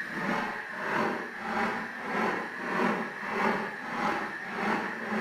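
A noisy, grinding or rubbing sound effect that swells and fades in a steady rhythm, about three swells every two seconds.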